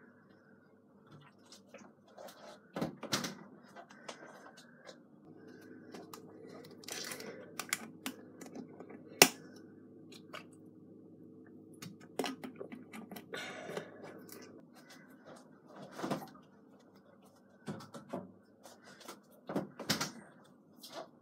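Scattered knocks and clicks of handling at an open fridge and a plastic water bottle, the loudest a single sharp click about nine seconds in. A low steady hum runs under them from about five to fourteen seconds in.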